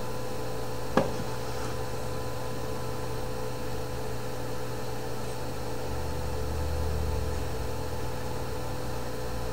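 Steady electrical hum and hiss, with one sharp click about a second in.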